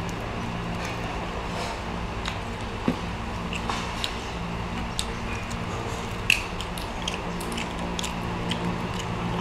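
Grilled prawns being shelled by hand and eaten: a scatter of small clicks and crackles from the shells, with some chewing, over a steady low hum.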